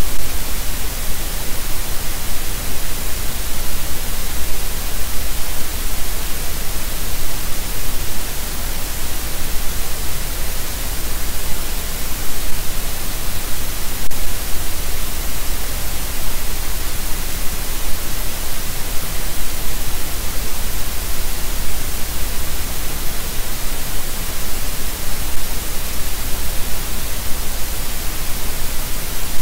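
Loud, steady static hiss from a nest cam's audio feed, an even noise across all pitches with no bird calls heard through it.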